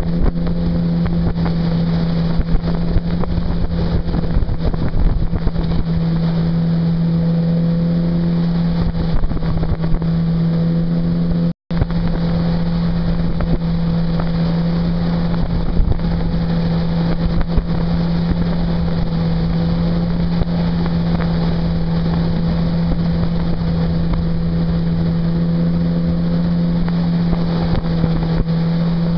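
Mercury 60/40 outboard jet motor running at a steady cruise, holding one constant pitch. The sound cuts out for a split second about midway.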